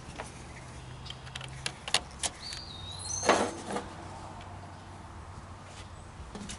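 Small metal clicks and clinks of battery-terminal hardware being handled, a few sharp ticks about two and three seconds in. A brief high whistling tone sounds a little past two seconds.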